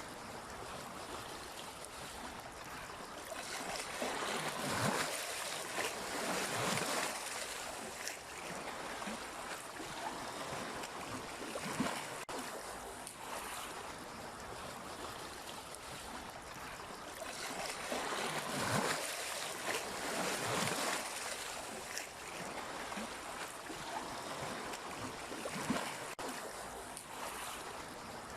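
Sea waves washing in: a steady rush of water that swells louder twice, about five seconds in and again near twenty seconds, as bigger waves break, with a couple of brief sharp splashes.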